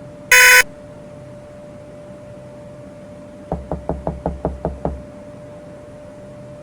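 A short, loud, harsh electronic buzz, then about a second and a half of rapid knocking on a door, about eight knocks, over a faint steady hum.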